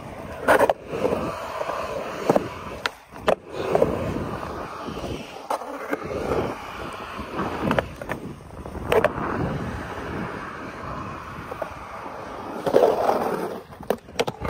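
Skateboard rolling on park concrete on 53 mm Powell Peralta Dragon urethane wheels and Independent Stage 4 trucks: a steady rolling rumble broken several times by sharp clacks of the board hitting the ground, with a quick cluster of clacks near the end.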